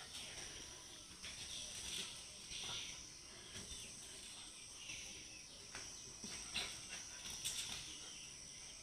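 Faint, steady, high-pitched chirring of insects, with a few brief soft clicks scattered through.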